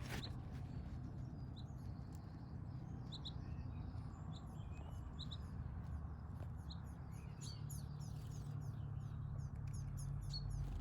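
Small birds chirping and singing, many short high chirps throughout, over a steady low rumble.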